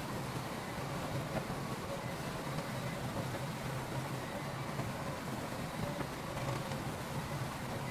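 Heavy earthmoving machinery running steadily, a continuous engine rumble with no pauses or revs.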